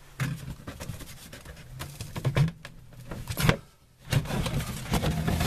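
A hand rubbing and knocking on a particle-board bench top, with several sharp knocks, the loudest about three and a half seconds in.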